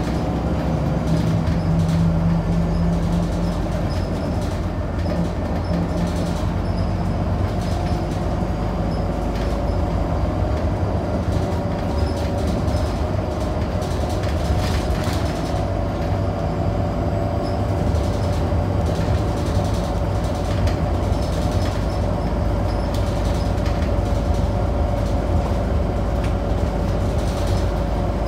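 Scania DC9 nine-litre six-cylinder diesel and ZF automatic driveline of a Scania K94UB bus running under way, heard from inside the cabin: a steady low rumble with a steady whine over it and occasional clicks and rattles.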